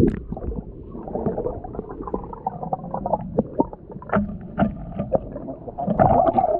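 Muffled underwater sound of a tide pool: water sloshing and gurgling, with many short clicks and knocks scattered throughout.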